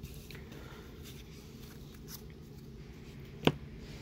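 Pokémon trading cards being handled: faint rustling and light taps, with one sharper tap about three and a half seconds in.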